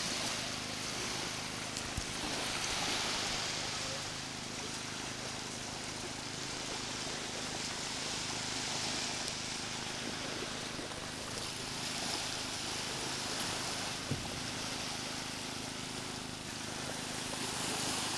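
Small waves washing onto a sandy beach, the hiss swelling and fading every few seconds over a steady low hum, with two short taps about two seconds in and near the end.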